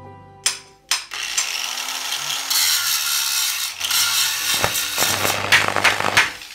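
Soft background music ends, then two sharp hits and about five seconds of harsh, hissing metal-grinding noise with a low hum and crackles, stopping shortly before the end.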